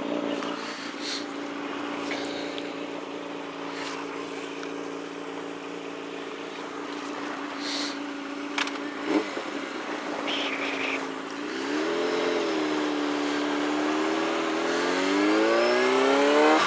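Yamaha motorcycle engine running at a steady cruising speed under a hiss of wind noise. About twelve seconds in the revs rise and dip briefly, then the engine accelerates with its pitch climbing steadily to the end.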